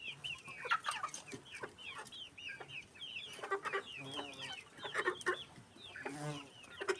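A flock of young Amrox chickens peeping, with many short, high chirps one after another and a few lower clucks mixed in about halfway through and near the end.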